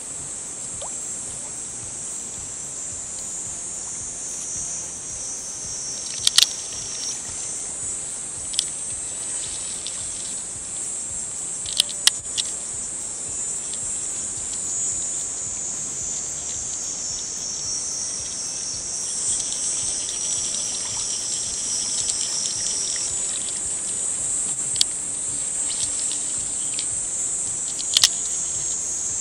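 Dense, steady high-pitched shrill of summer insects, with a few sharp clicks scattered through it, the loudest about six, twelve and twenty-eight seconds in.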